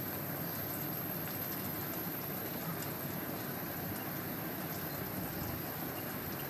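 Thick egg curry gravy simmering in a pot, a steady bubbling hiss with small pops.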